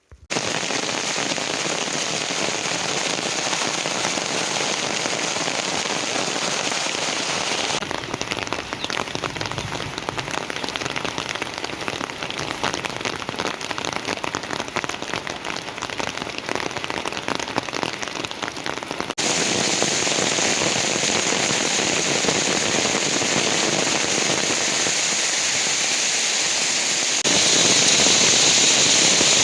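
Heavy rain falling, a dense steady hiss that starts suddenly and shifts abruptly in level three times, growing louder near the end.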